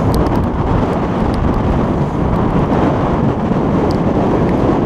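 Strong wind, over 25 mph, buffeting the camera microphone as a loud, steady low rumble, with a few faint high ticks scattered through it.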